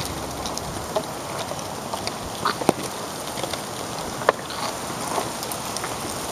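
A few sharp clacks of street hockey sticks and ball on asphalt over a steady background rush, the loudest about two and a half and four seconds in.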